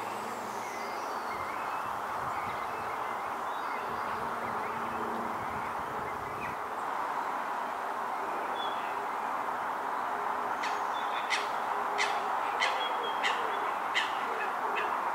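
Outdoor pond ambience with birds calling over a steady background hiss: faint low calls, then from about ten seconds in a run of about seven sharp, short ticking notes, roughly one and a half a second.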